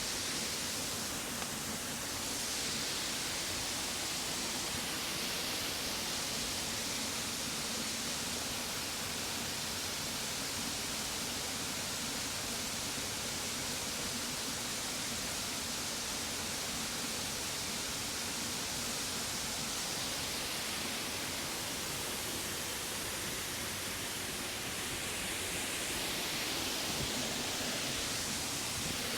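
Waterfall rushing steadily, a continuous even roar of falling water.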